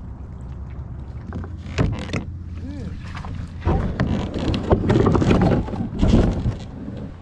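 A kayak landing against the shore as the paddler climbs out. Sharp knocks come about two seconds in, then a few seconds of scraping and thumping as the hull shifts and the paddler steps off.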